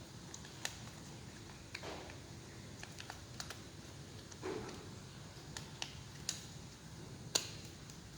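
Small parts of a cordless drill being handled on a bench: scattered light clicks and taps, two short scrapes, and a sharper click near the end.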